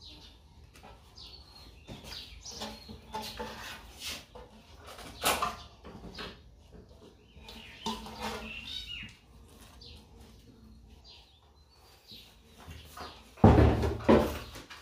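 Marinade being scraped by hand out of a steel bowl onto chicken in a large steel pot: scattered scrapes, dabs and light metal clinks. A loud, heavier knock comes about thirteen seconds in as the bowl is moved away.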